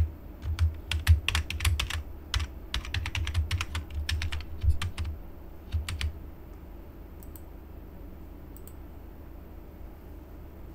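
Typing on a computer keyboard: quick runs of keystrokes that stop about six seconds in, leaving a faint steady low hum.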